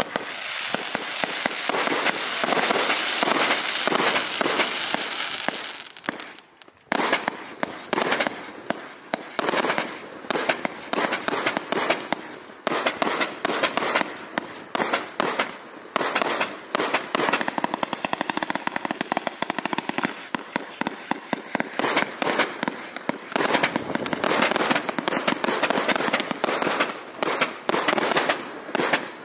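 Raccoon Pro Line 'Destroyers' 164-shot compound firework cake firing. A dense, continuous rush of noise runs for about six seconds, then after a brief lull come rapid volleys of launch thumps and shell bursts, many per second, continuing without pause.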